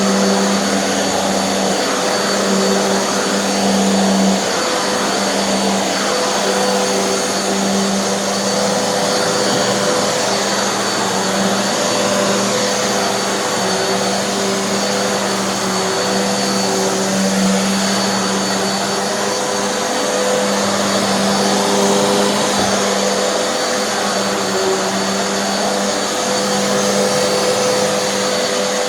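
Hoover NanoLite upright vacuum running steadily under load with its brushroll spinning, while its idler pulley is held to the brushroll by a low-temperature hot-glue repair under test. It is a loud, even motor hum with a thin high whine and no change.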